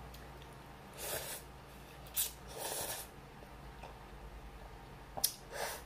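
Slurping instant ramyun noodles off chopsticks: four or five short, hissing slurps, with a couple of sharp clicks between them.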